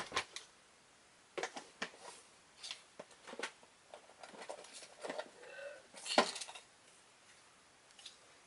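Scattered clicks, knocks and rustles of small objects being handled and moved about while someone rummages for a ruler, with the sharpest knock about six seconds in and a brief squeak just before it.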